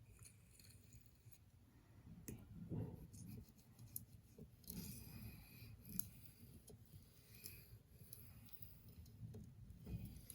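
Faint scraping strokes of a pocketknife blade drawn across a fine, high-grit sharpening stone, with light clicks between strokes.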